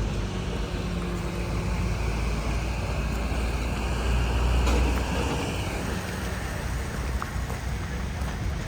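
Low, steady rumble of road traffic, with vehicle engines and tyres, swelling a little about four to five seconds in and easing after.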